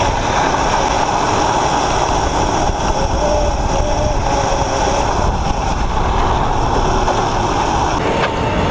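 Electric drift kart driving, its motor whining and gently rising and falling in pitch with speed, over a heavy rumble of wind on the onboard microphone.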